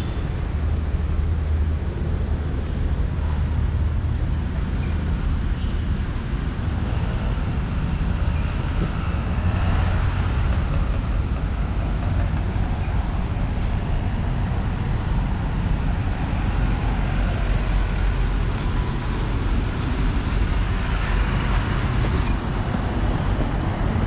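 Street traffic noise: a steady low rumble of road vehicles, swelling a little as vehicles pass about ten seconds in and again near the end.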